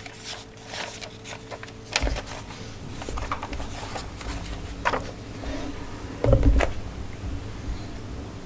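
Handling noise at a lectern microphone: scattered clicks and knocks, with a louder, deep thump about six seconds in. A faint steady hum stops about two seconds in.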